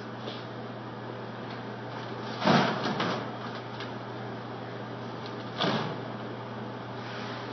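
Two short bursts of crackling from a welding arc, about three seconds apart, over a steady low electrical hum.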